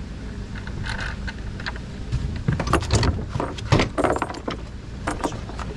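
A run of metallic clinks and knocks as heavy gear is handled and set down, over a steady low rumble.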